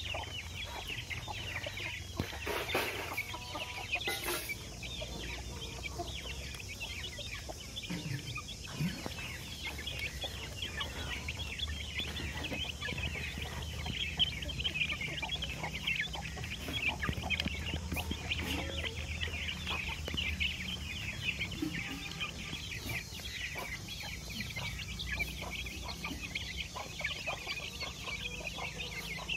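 A flock of young Aseel and Erode chicks peeping and cheeping continuously, many short high calls overlapping. There are two brief knocks at about three and four seconds in.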